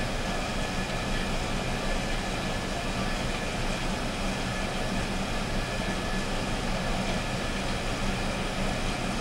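Coffee roaster running during a roast: steady whirring machine noise from its motor and fan, with a low hum underneath.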